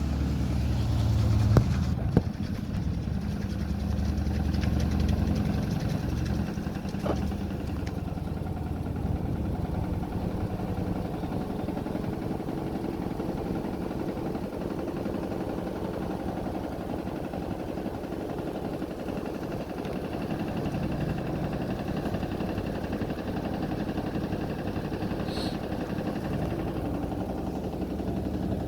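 Damro DFA60 washing machine running, its motor giving a steady hum, with a couple of sharp clicks about two seconds in.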